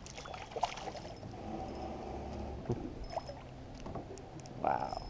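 Water splashing and lapping beside an aluminum boat while a hooked bass thrashes at the surface, with scattered light clicks and knocks from the rod, reel and hull. A brief louder noise comes near the end.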